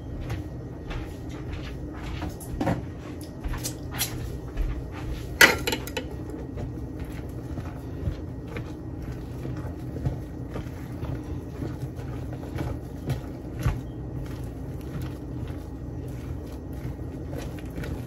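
A spoon stirring a thick, creamy apple salad in a large mixing bowl, with irregular clicks and knocks of the spoon against the bowl and one sharper knock about five and a half seconds in, over a steady low hum.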